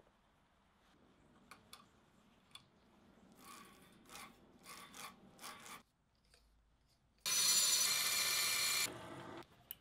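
Small clicks and scraping of brass parts being handled and slid onto a steel slide held in a vise, then, about seven seconds in, a bandsaw cutting a brass bar for about a second and a half, loud and ringing.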